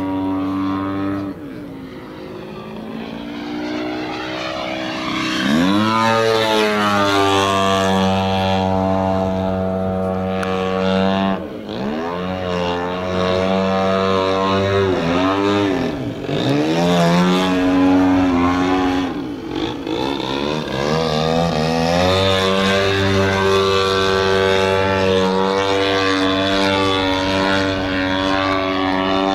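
A 35% scale Aeroworks Extra 260 radio-control aerobatic plane's engine and propeller, running in flight. It is softer and lower for a few seconds near the start, then the pitch sweeps up sharply. Several more times the pitch drops and climbs again as the plane manoeuvres.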